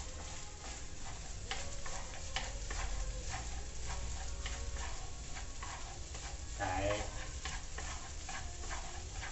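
Chopsticks stirring and tossing egg fried rice in a frying pan: irregular scraping and tapping on the pan over a light sizzle. A short voice-like call cuts in about seven seconds in.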